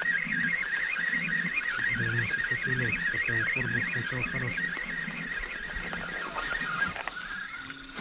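Trolling reel's ratchet clicker buzzing rapidly as line pays out, its pitch wavering with the line speed, stopping just before the end; a quick run of short low tones sounds about two seconds in.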